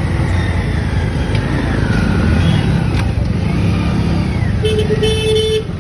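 Motor scooter running at low speed through busy street traffic, with a steady low rumble. Near the end a vehicle horn honks for about a second.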